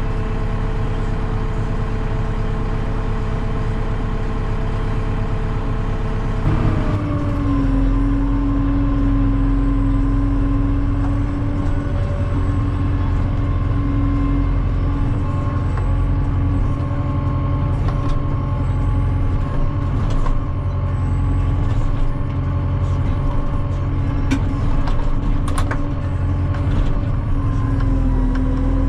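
Engine of a farm machine running steadily under load, with a low rumble. Its pitch shifts about six and a half seconds in and settles again.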